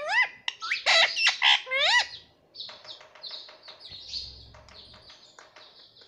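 Indian ringneck parakeet calling: several loud whistled squawks that swoop in pitch during the first two seconds, then softer rapid chirping and chattering.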